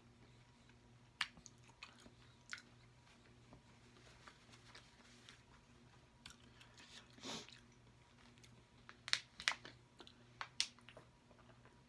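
Close-miked chewing and biting of soft food, with scattered wet mouth clicks. Near the end come a few louder sharp clicks as a plastic drink bottle is handled for a drink.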